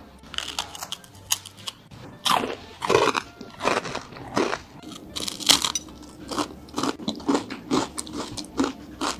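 Crunchy chewing of crispy scorched-rice crackers (cơm cháy) topped with pork floss: a loud bite about two seconds in, then steady crunches about twice a second.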